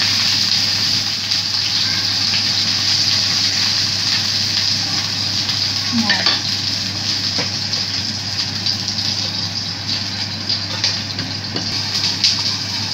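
Whole fish frying in hot oil in a nonstick pan, giving a steady sizzle, with a wooden spatula scraping the pan at the start as the fish is turned.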